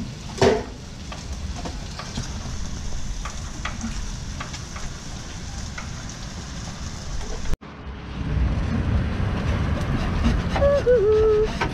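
Meat sizzling on a street-stall flat-top griddle, with frequent light clicks and scrapes of the cook's metal tongs. A sharp clatter about half a second in; the sound cuts out for an instant past the middle and comes back with more low rumble.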